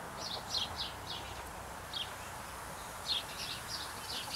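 Birds chirping: short, high notes in small quick clusters of two to four, heard several times over a faint steady outdoor hiss.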